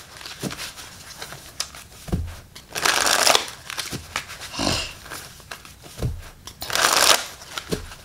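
A deck of cards being shuffled by hand: two bursts of riffling, about three seconds in and again about seven seconds in, with a few soft knocks from handling the deck.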